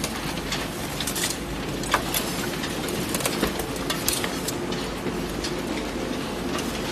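Waste-recycling plant machinery running: a steady mechanical rumble and hum with irregular sharp clicks and knocks.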